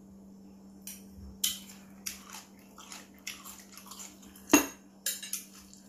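Metal spoon clinking and scraping against a porcelain soup bowl and plate during a meal, mixed with eating and chewing sounds: a string of irregular short clinks, the loudest about four and a half seconds in.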